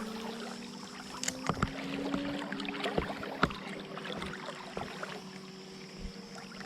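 Fishing reel being cranked to retrieve a crankbait: a faint steady whir with a few light clicks, over the steady noise of creek water.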